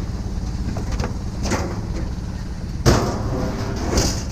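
A vehicle engine running steadily, with a sharp knock about three seconds in and a brief rattle near the end.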